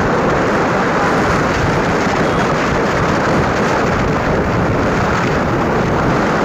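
Steady rushing wind buffeting the microphone of a phone carried on a moving vehicle, with road noise under it.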